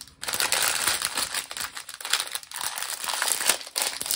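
Small plastic bags of diamond-painting drills crinkling in the hands as they are pushed back into their packet, a run of rustles with a few short pauses.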